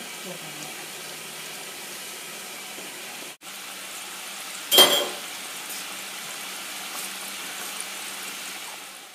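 Mutton curry simmering in a pot, a steady bubbling hiss that cuts out for an instant a little after three seconds. About halfway through comes a single sharp clink, the loudest sound, and the simmering fades out at the end.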